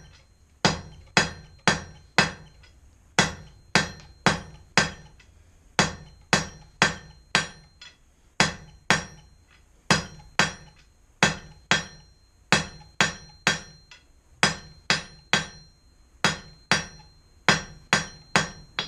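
Blacksmith's hand hammer striking hot steel on an anvil, drawing a point on the bar, about two blows a second with a few brief pauses. A high ringing tone from the anvil hangs on between the blows.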